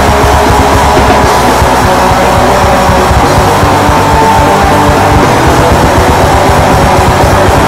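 Raw black metal demo recording: distorted guitars over fast, dense drumming, loud and unbroken.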